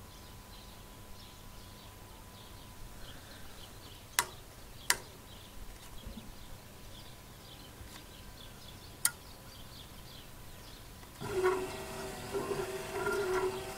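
A few sharp clicks, then about eleven seconds in an electric motor on a home-built Arduino pellet burner prototype starts and runs with a steady hum.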